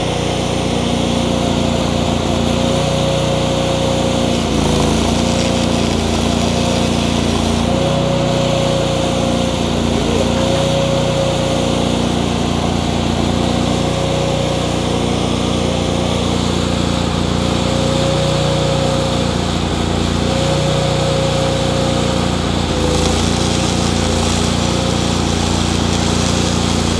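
Miller Bobcat engine-driven welder-generator running steadily, its pitch dipping briefly a few times, with the crackle of a stick-welding arc on steel pipe.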